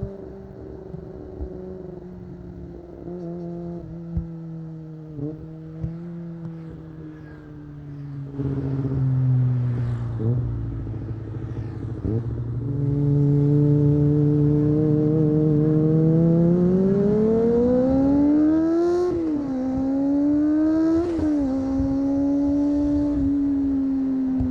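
Kawasaki ZX-25R's 249 cc inline-four with an Akrapovic exhaust, heard from the rider's seat: it cruises steadily, then the throttle opens and the revs climb hard, with two quick upshifts, each a sudden drop in pitch, before it settles at a steady cruise.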